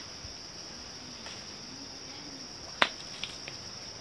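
Insects chirring steadily in a single high-pitched tone. About three seconds in there is one sharp crack, followed by two lighter clicks.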